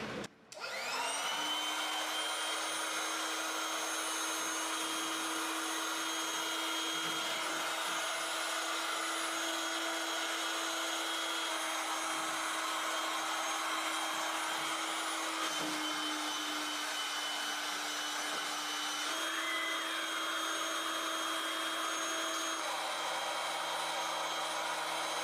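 Electric air mattress inflator blower spinning up about half a second in, then running as a steady motor whine while it inflates an inflatable sprinkler toy. Its pitch shifts slightly a couple of times.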